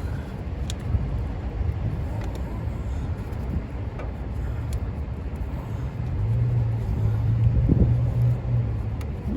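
Low rumble of street traffic, with a vehicle going by louder for a couple of seconds past the middle. A few light clicks are heard along with it.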